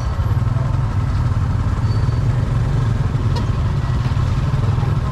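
A small engine idling steadily with a low, even drone.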